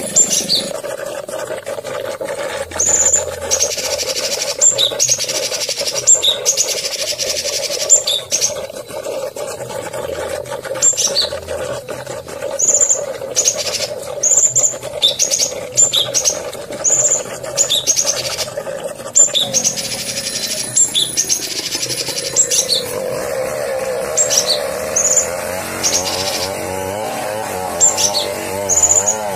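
Songbird singing a long string of short, high chirps, several each second at times, over a steady lower drone; near the end a fast warbling trill joins in lower down.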